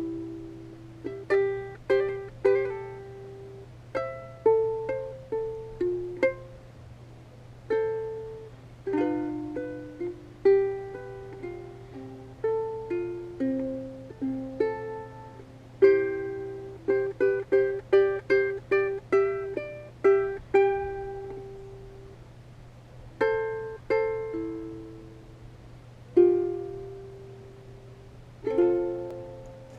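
Background music: a melody of plucked notes on a ukulele-like string instrument, each note dying away quickly, with runs of quick notes in the middle. A steady low hum sits underneath.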